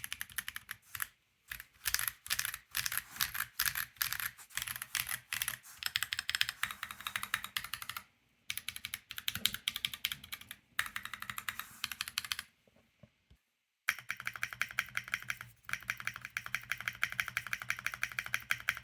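Typing on a 65% mechanical keyboard with stock Tecsee Corsa 60 g medium tactile switches on a POM plate, with PBT keycaps and minimal case foam. Runs of quick keystrokes, broken by a short pause about 8 seconds in and a longer one past 12 seconds, then a fast, even run of keystrokes to the end.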